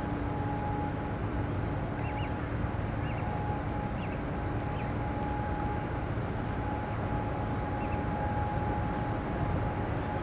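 Steady low mechanical drone with a constant hum, and faint short high bird peeps a few times in the first half.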